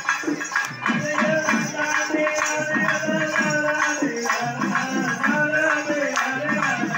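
Live Tamil folk music accompanying a valli kummi dance: a melody, with singing, over quick, even drum strokes and jingling percussion.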